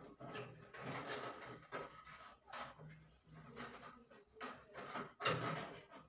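Faint handling noises as a gas water heater's copper thermocouple lead is worked by hand, light rustling and scraping, with a louder rustle about five seconds in.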